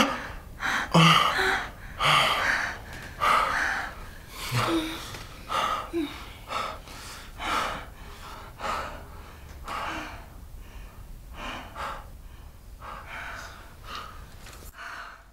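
Heavy breathing and gasps from a couple making love, with a few short moans, about one breath a second, fading steadily quieter.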